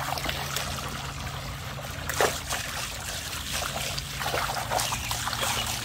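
Garden hose spraying a steady stream of water into a plastic kiddie pool, a continuous hissing splash. A few sharper splashes break through, the clearest about two seconds in, as a dog stands in the water.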